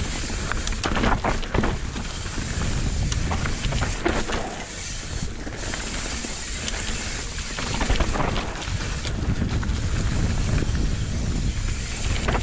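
Wind rushing over the camera microphone as a downhill mountain bike rolls fast over loose dirt and leaf litter, with scattered knocks and rattles from the bike over rough ground.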